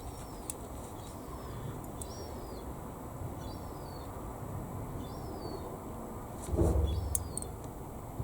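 A bird chirping over and over, one short falling note every second or so, over a steady low rumble that swells louder briefly about six and a half seconds in.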